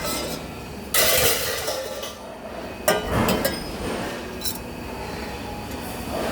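Spot-welding work with metal parts: a hiss lasting about a second, then a sharp metallic click and lighter clinks of metal being handled.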